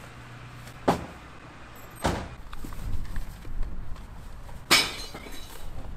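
Rubbish going into plastic street recycling containers: three sharp knocks and bangs, about a second in, about two seconds in and the loudest near the end. Street traffic hums underneath.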